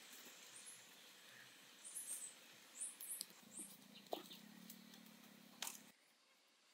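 Faint ambience with short, high-pitched chirps in quick runs, and two sharp clicks in the second half from split bamboo strips being bent and tied into a hoop frame. A faint low hum runs under the second half.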